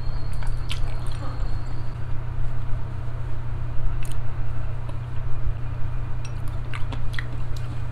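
Close-miked wet chewing and gnawing on a braised chicken foot, squishy mouth sounds with a few short sharp clicks as the meat is worked off the small bones, over a steady low hum.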